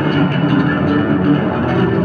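Yamaha electric bass guitar played solo, a fast, unbroken run of plucked notes, amplified through a concert PA.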